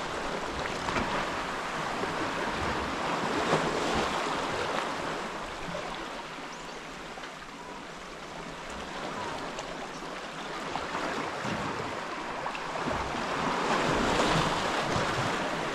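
Small sea waves washing in over a flat rocky ledge and draining back, a steady surf wash that swells near the start, eases off in the middle and swells again near the end.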